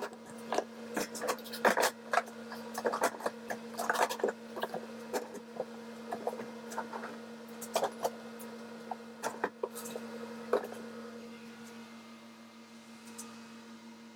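Irregular clicks and knocks of knife and plastic containers as drained feta blocks are cut and packed, over a steady low electrical hum. The knocking thins out over the last few seconds.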